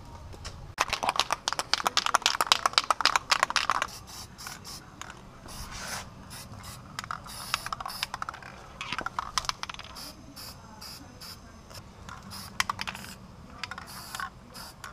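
Aerosol spray-paint can being shaken, its mixing ball rattling rapidly for about three seconds. Short hissing sprays and more brief rattles follow.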